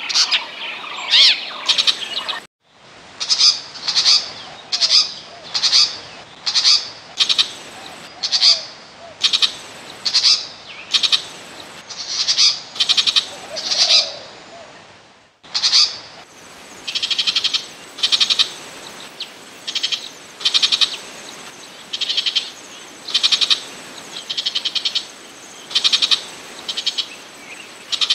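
Burmese shrike calling: a long series of short, harsh, scratchy notes, about one every three-quarters of a second, the later ones each a fast rattle. The sound drops out for a split second twice, about two and a half seconds in and again about halfway through.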